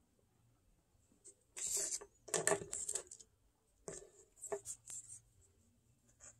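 Paper rustling from a handmade construction-paper card, its cutout wing flipped open and pressed down: a short cluster of crinkles about a second and a half in, and a few softer ones around four seconds in.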